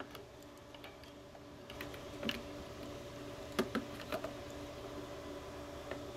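A 10-inch adjustable wrench clicking against the brass propane fitting as the Gas Stop shutoff is tightened onto the tank valve. A few sharp, irregular metal clicks sound over a steady faint hum.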